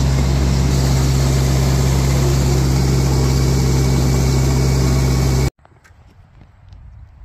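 Engine of a small red earthmoving machine running steadily, heard loud and close from the operator's seat, with a strong low hum. About five seconds in it cuts off abruptly to a much quieter outdoor background of faint wind.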